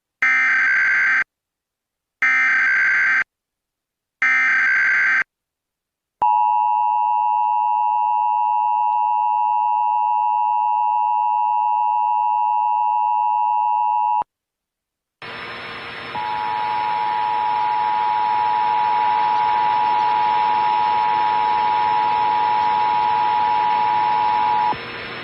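Emergency Alert System tones. Three short bursts of the warbling SAME data header open it, then the steady two-tone attention signal sounds for about eight seconds and cuts off. After a brief gap comes a stretch of steady hiss, and a single steady tone runs over it from about a second later until just before the end.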